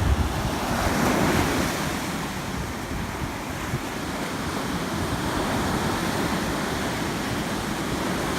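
Ocean surf breaking and washing up the beach, with wind buffeting the microphone; the wash swells about a second in.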